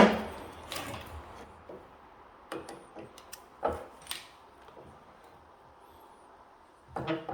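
Sharp metallic clicks and knocks from a car door latch and its parts being handled and worked by hand, with a loud click at the start and a quick cluster of them about three to four seconds in.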